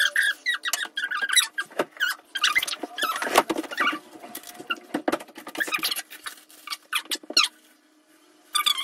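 Close, scratchy rustling of hair being brushed and handled during styling, in quick irregular strokes with a brief lull near the end.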